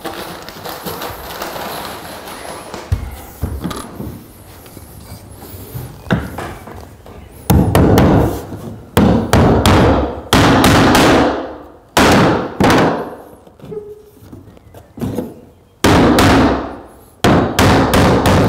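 Hammer blows on the wooden floorboards of a garden shed, a series of loud strikes starting about halfway through, each fading away after the blow.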